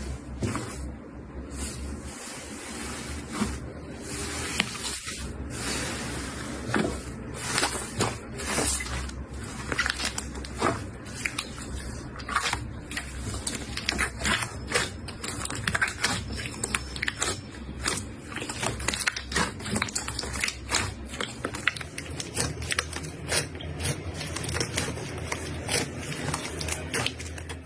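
Slime being squished and kneaded by hand: a steady run of wet squishes and many small crackling pops, getting denser in the second half.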